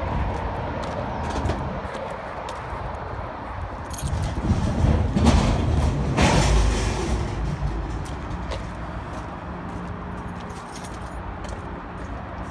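Vehicle engine noise from the truck lot, swelling louder for a few seconds in the middle, with light clicks and jingles from someone walking.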